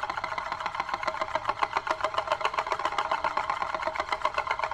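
Euler's Disk, a heavy chrome-plated steel disc, spinning and rolling on its round concave base, making a fast, even whirring rattle.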